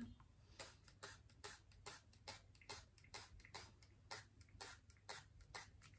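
Hand-pump fine-mist spray bottle of water squirted repeatedly onto hair to wet it: a short, faint hiss about twice a second.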